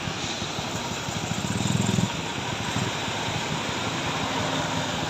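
Heavy truck engine running steadily under a steady hiss, with a louder low hum that builds for about half a second and cuts off abruptly about two seconds in.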